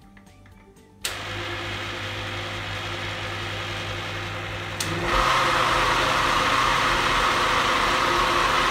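Electric countertop blender switched on about a second in and running steadily, beating eggs, sugar, yogurt and ghee into cake batter. About five seconds in there is a click and the motor is turned up, running louder and higher.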